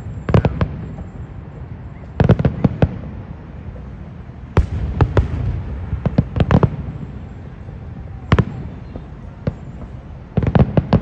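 Aerial fireworks display: shells bursting as sharp bangs in clusters every couple of seconds, with a low rumble between the clusters.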